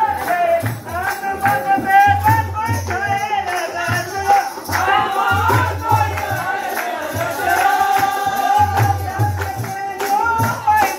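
Sirmouri nati folk music: a wavering melody line with singing over a repeating low drum beat and light jingling percussion.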